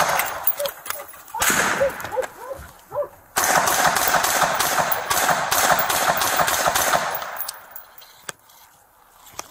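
Rapid rifle gunfire, many shots in quick succession. One burst comes at the start, a shorter one about a second and a half in, and a long sustained volley from about three and a half seconds in to about seven seconds, after which the firing stops.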